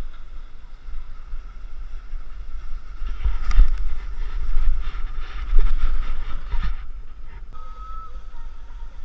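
Wind buffeting an action camera's microphone as a snowboarder rides downhill, with the board scraping over snow. About three and a half seconds in comes a sharp knock, followed by about three seconds of louder rough scraping and tumbling in snow as the rider goes down or carves hard, before it settles back to steady wind rumble.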